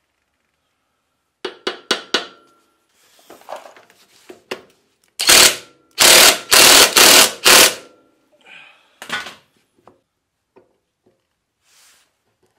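Impact wrench run in several loud, short bursts about halfway through, driving the nut onto the top of a garden tractor's front wheel spindle. A quick run of sharp metal clicks comes a few seconds before.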